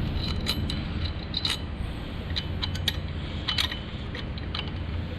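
Irregular metallic clicks and clinks of tools and engine parts being handled while the rod bearing caps of a Honda D15 engine come off, over a steady low hum.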